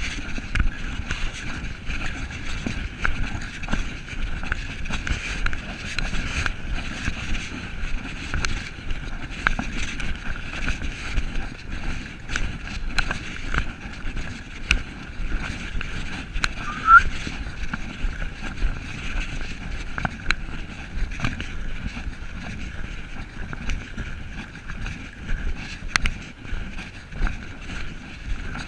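Wind and handling noise on a body-worn camera's microphone during a walk, a rough rumble with many small knocks and rustles over a steady hiss. A short rising chirp sounds once about 17 seconds in.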